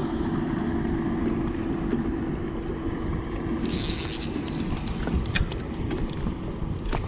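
Gusty wind buffeting the microphone aboard a small fishing boat on open water, over a steady low hum. About halfway in there is a short hiss.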